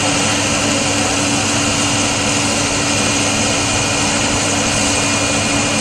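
A Red Cross emergency response truck idling, a constant engine hum that holds steady without revving or changing.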